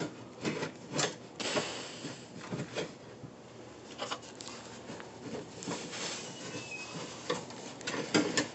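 Hands working parts under a car: irregular clicks and light knocks with some rubbing, and a quick cluster of knocks near the end.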